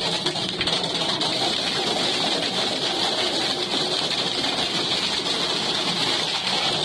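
Hail pelting a truck cab, a dense, steady rattle heard from inside the cab.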